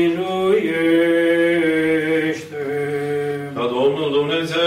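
Orthodox liturgical chant sung by a male voice in long, held notes. There are two phrases, with a short breath break about two and a half seconds in. It is a sung response of the memorial litany.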